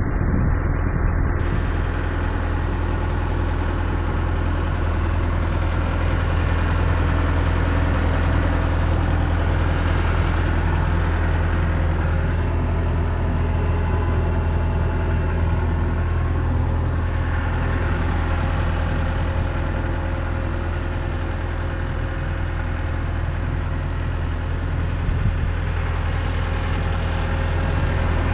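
Diesel engine of a 2004 John Deere 310G backhoe running steadily at idle, a constant low hum.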